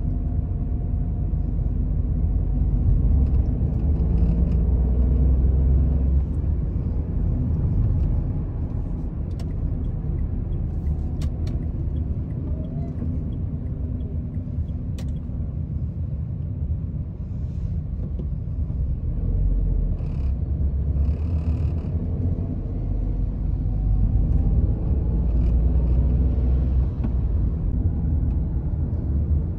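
Taxi driving through city streets, heard from inside the cabin: a steady low engine and road rumble that grows louder twice, with a faint wavering whine and a few light clicks.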